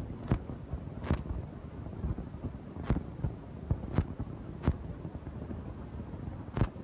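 Wind rumbling on a phone's microphone, with a sharp knock every second or so as the phone is handled and swung about.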